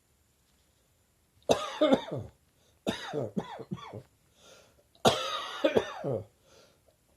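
A person coughing in three bouts of several quick coughs each, starting about a second and a half in, each cough dropping in pitch.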